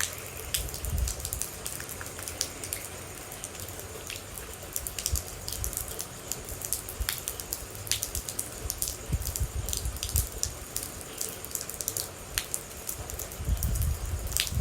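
Rain falling with many individual water droplets dripping and ticking sharply over a steady hiss. Low rumbles swell now and then, the loudest near the end.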